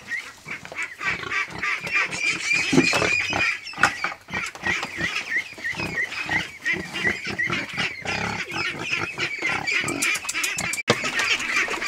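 Two pigs calling in their pen while a bucket of feed is brought in: hungry pigs begging at feeding time. Short knocks run through it.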